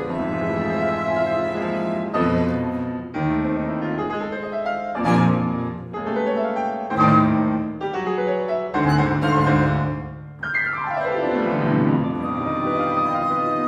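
Contemporary chamber piano concerto played live: solo piano striking heavy chords about every two seconds over sustained violin and cello. A fast falling sweep comes about ten and a half seconds in.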